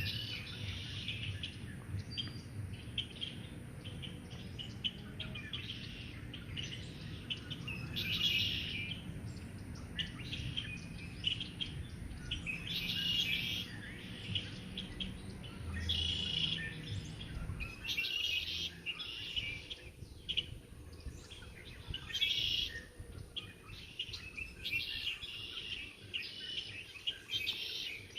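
Songbirds singing and chirping, with repeated bursts of high calls all the way through. Under them runs a low hum that stops about two-thirds of the way in.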